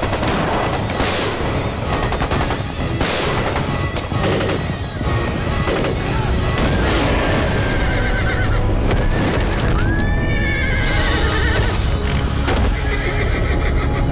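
Battle sound effects: cavalry horses galloping and whinnying, with several sharp blasts in the first half and loud neighs near the middle, under background music.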